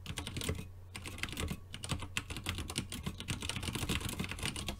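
Typing on a computer keyboard: a fast, uneven run of keystrokes with a couple of brief pauses, stopping just before the end.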